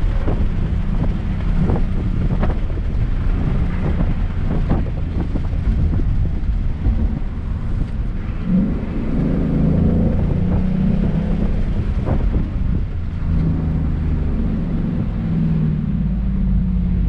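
Car engine running while driving, with steady road and tyre rumble. The engine note shifts up and down from about halfway through, and a few short knocks come in the first half.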